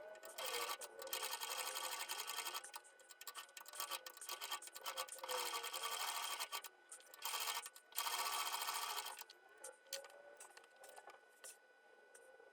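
Sewing machine running in several short bursts of a few seconds each, stitching new Velcro onto a glove.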